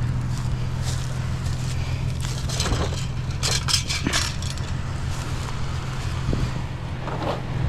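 A vehicle engine idling steadily, with a burst of clattering and clanking about a third of the way in as scrap metal is handled, and another brief clatter near the end.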